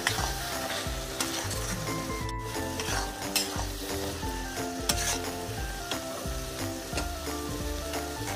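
A steel spatula stirring and scraping a thick mushroom-and-pea curry around a metal kadhai while the curry sizzles, with repeated sharp scrapes of the spatula on the pan.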